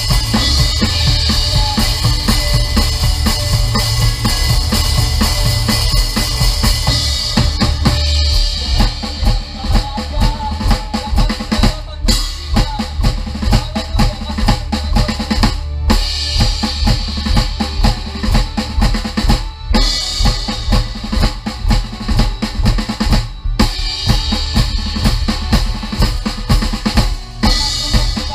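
Drum kit played with a band in an up-tempo song: bass drum, snare and cymbals keeping a steady beat. Cymbals wash heavily for the first several seconds, then the groove goes punchier, with short stops every few seconds.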